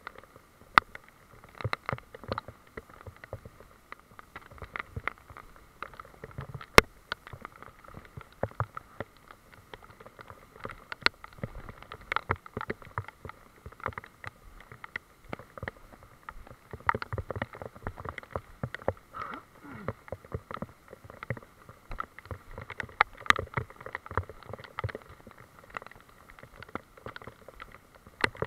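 Footsteps and handling noise from walking with a handheld camera on a wet, muddy forest trail: irregular clicks, knocks and rustles over a faint steady hiss.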